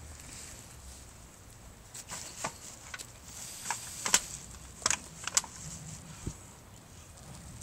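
Scattered rustles and clicks of someone rummaging through a pile of trash, clothes and plastic bags, with a dull thump a little after six seconds in.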